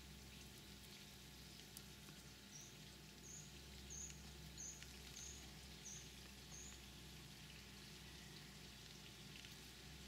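Near-silent outdoor ambience with a faint steady hiss. In the middle, a run of seven short, high chirps about two-thirds of a second apart.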